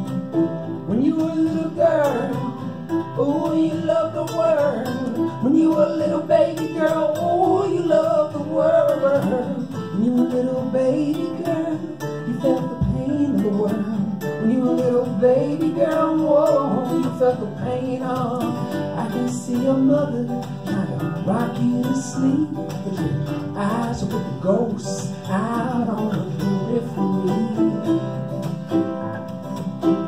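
Acoustic guitar playing an instrumental passage of a folk song, with a wordless melody line gliding over it.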